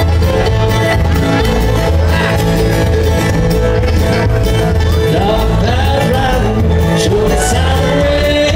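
Live bluegrass band with banjo, mandolin, acoustic guitars, fiddle and upright bass playing at a steady beat; a voice comes in singing a little past the middle.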